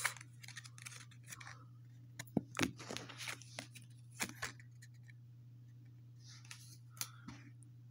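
Bakugan trading cards being handled and flipped through by hand: scattered crisp clicks and short rustles of card stock, busiest in the first few seconds, with a brief soft rustle near the end. A steady low hum runs underneath.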